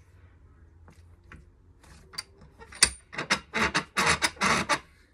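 Steel bench vise wound in by its handle, squeezing a new rubber bush into the bottom eye of a motorcycle rear shock absorber. There is a sharp metallic click near the middle, then a quick run of short scraping strokes for about two seconds.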